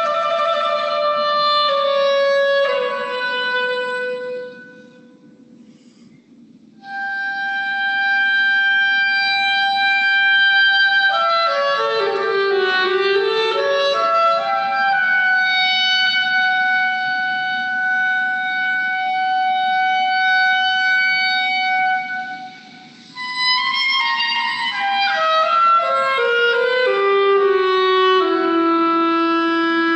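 Solo woodwind instrument playing a slow melody with long held notes. The phrases are parted by pauses for breath, and a falling run near the end settles on a long low note. The room adds a reverberant ring.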